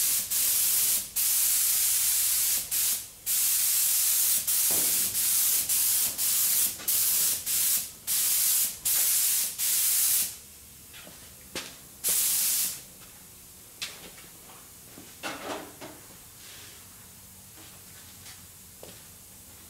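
Compressed-air spray gun hissing in short bursts as the trigger is pulled and released, about a dozen times in the first ten seconds and once more around twelve seconds in. After that only a few faint knocks.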